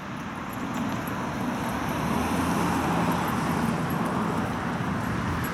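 Road traffic noise, a steady rushing with a faint low hum that swells a little in the middle, as from a vehicle going by on the road.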